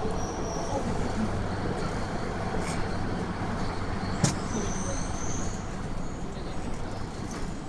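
Beijing Subway Line 5 train running in the tunnel, heard from inside a crowded car: a steady rumble with a low hum and a thin high whine, as the train nears a station. A single sharp click about four seconds in.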